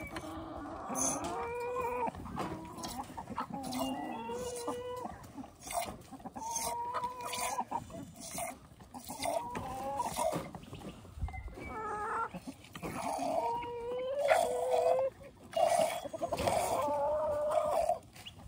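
Sheep being hand-milked, milk squirting in short spurts into a glass jar, with repeated drawn-out farm-animal calls, each about a second long, sounding over it.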